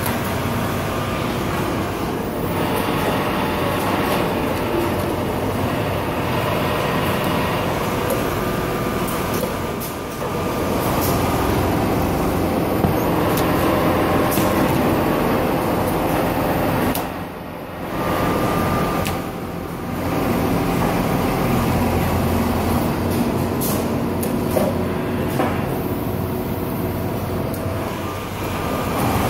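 Steady mechanical running noise of a CNC automatic sewing machine and the workshop machinery around it, with a few light clicks and two brief dips in level about two-thirds of the way through.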